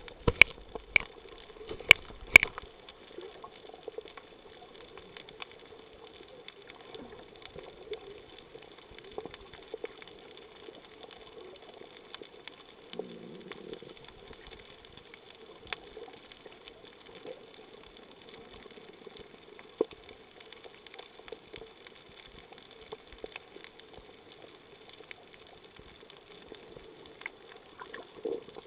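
Underwater ambience recorded with the microphone below the surface: a steady, muffled water hiss with scattered sharp clicks, several loud ones in the first two or three seconds.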